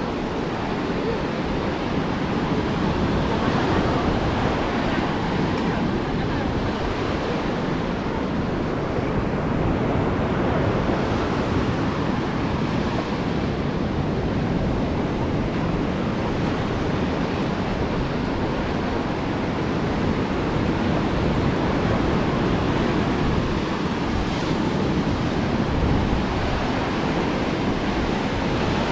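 Ocean waves breaking on a beach in a steady wash of surf, with wind noise on the microphone.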